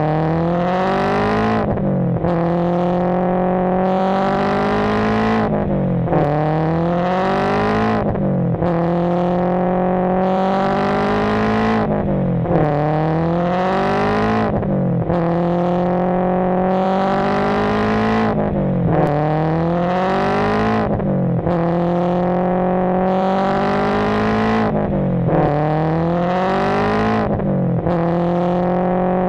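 Racing-car engine revving up through the gears, its pitch climbing and then dropping at each shift, over and over in a very even repeating cycle.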